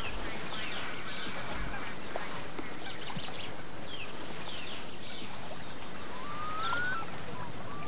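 Outdoor ambience: a steady hiss with scattered short bird chirps, and a rising whistled bird call about six and a half seconds in.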